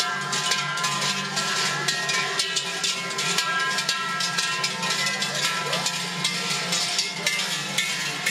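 Many large belt bells worn by Glöckler runners clanging together in a dense, continuous jangle as the group runs past, with many overlapping ringing tones.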